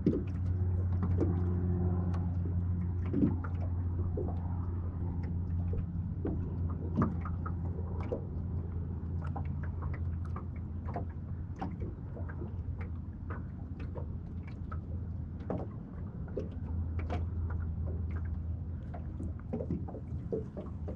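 Steady low hum of a fishing boat's electric trolling motor, with scattered light clicks and taps of tackle handling over it.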